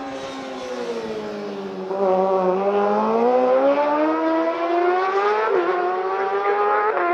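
Racing motorcycle engine at high revs: its pitch dips, then climbs steadily and gets louder from about two seconds in as the bike accelerates, dropping suddenly at an upshift about two-thirds of the way through.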